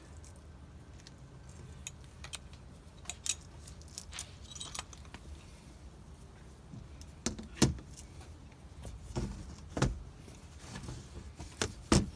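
Scattered clicks, clinks and knocks of small window hardware and tools being handled, with a few sharper knocks about seven and a half, ten and twelve seconds in.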